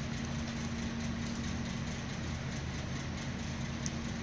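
An engine idling steadily: a low, even hum with a constant higher tone over it.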